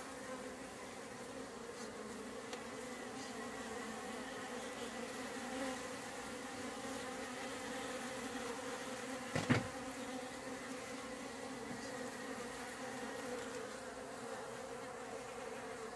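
Many honey bees buzzing close by, a steady hum with a low drone and a higher overtone above it. A single brief knock sounds about halfway through.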